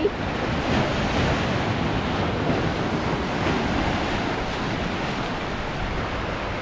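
Sea waves washing in steadily, with wind buffeting the microphone.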